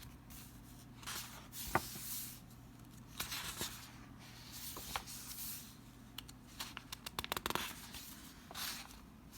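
Paper pages of a picture book being turned and handled: a series of short, faint rustles and swishes with a few sharp clicks.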